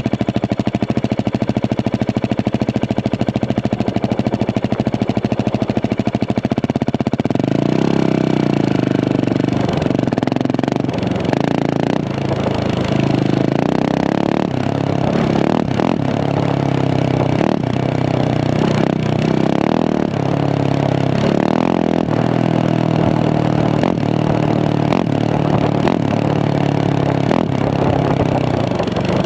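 Husqvarna 701 Supermoto's single-cylinder engine through a Remus exhaust, idling steadily, then revved in repeated short blips from about seven seconds in, the pitch rising and falling with each one.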